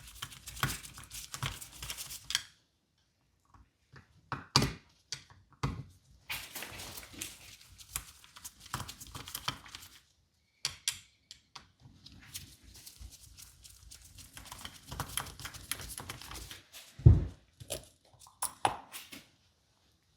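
Small metal parts and a hand tool clicking, scraping and knocking as the float bowl is unscrewed and lifted off an outboard motor's carburetor, with one sharper knock near the end.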